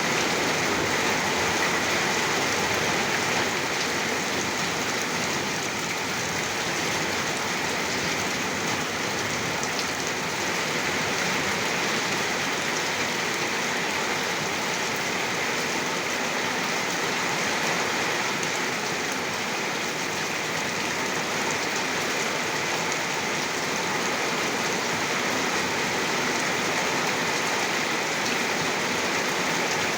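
Heavy rain falling steadily, a dense, even hiss of drops on surfaces with no let-up.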